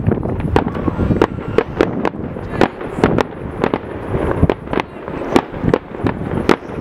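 Fireworks display: an irregular, rapid series of bangs from aerial shells bursting, about three or four a second.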